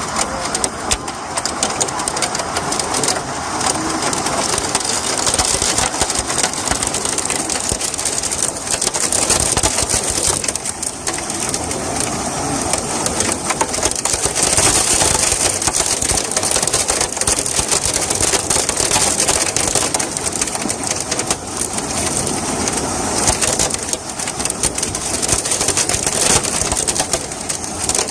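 Hailstorm: hailstones pelting down in a dense, continuous clatter of rapid impacts.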